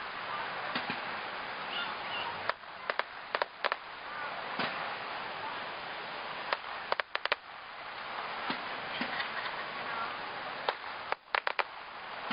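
Fireworks popping and crackling: clusters of sharp cracks every few seconds over a steady background hiss.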